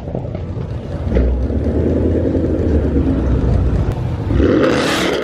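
A car engine runs with a deep, steady rumble. Near the end a louder burst of rushing noise swells briefly.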